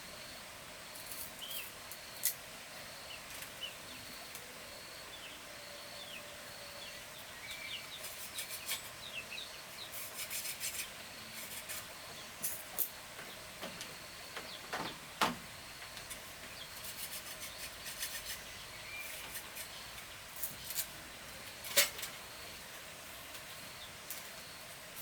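Scattered clicks and rubbing, scraping sounds of wood or bamboo being handled, over short bird chirps and a faint, evenly pulsing high buzz.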